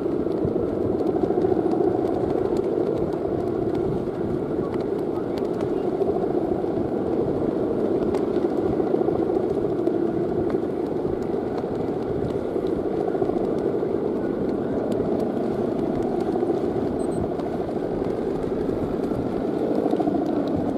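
Balinese kite hummer (guangan), a taut bamboo bow mounted on a giant bebean kite, droning steadily in the wind with a low, even hum.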